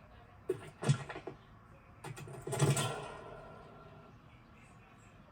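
Film sound effects: two quick knocks about half a second and a second in, then a louder clattering burst near the middle that fades away over a second or two.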